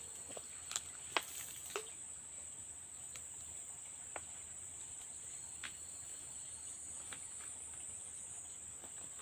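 Steady high-pitched insect chorus, with a few scattered light clicks and snaps.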